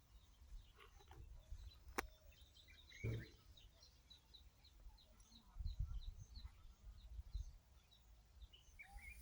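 Faint bird chirping: short high notes repeating a few times a second over a low rumble, with a sharp click about two seconds in.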